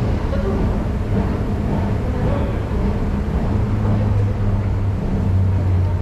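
Escalator running: a steady low mechanical rumble with a hum that grows stronger about halfway through.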